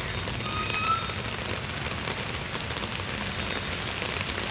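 Heavy rain falling, a steady hiss of rain.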